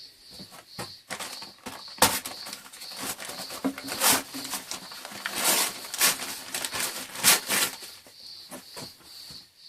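A hand scraping tool working along a wall-sheet join, irregular scraping strokes with a few sharp knocks, clearing old glue and loose plaster from the join.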